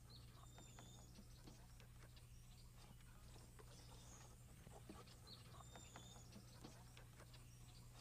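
Near silence: a steady low hum, with a few faint, short high chirps and scattered soft clicks.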